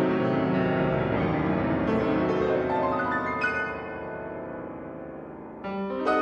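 Piano music: sustained notes and chords that fade through the middle, with a fresh chord struck near the end.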